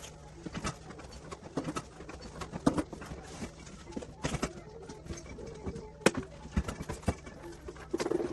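Irregular knocks, clicks and clatter of animatronic prop parts and packaging being handled while unpacked from their box, with a few louder knocks.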